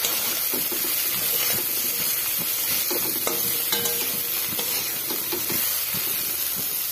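Cut okra sizzling as it fries in oil in a metal kadhai, with a spatula scraping and knocking against the pan as it stirs.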